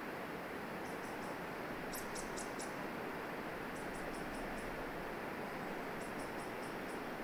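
Very high, thin chirps in quick groups of three to five notes, a group every couple of seconds, over a steady rushing background.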